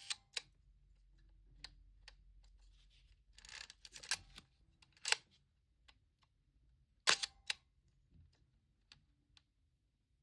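Agfa Colorflex 35mm SLR firing and being worked: a series of sharp mechanical clicks, with a short rattling cluster about three and a half seconds in and the loudest clicks about five and seven seconds in.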